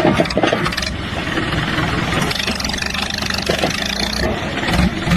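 An engine running, with some clatter and knocks.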